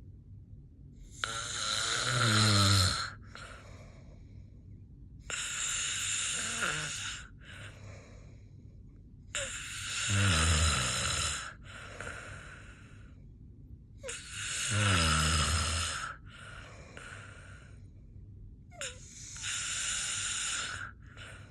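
Snoring in slow, regular breaths: five loud snores about every four to five seconds, each followed by a softer outbreath. Several snores carry a low, vibrating tone that falls in pitch.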